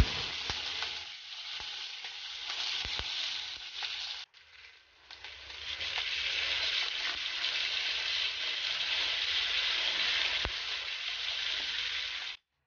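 Marinated pork belly slices sizzling steadily in oil on an electric grill pan, with a few light clicks. The sizzle drops out briefly a little past the third second and cuts off suddenly near the end.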